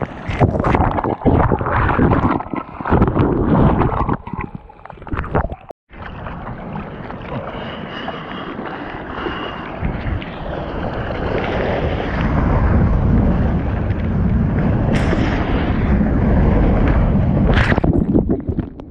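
Surf water splashing and sloshing against a GoPro at water level, in choppy bursts for the first few seconds. After a brief dropout, a steady rush of water and wind on the microphone grows louder, with two sharp splashes near the end.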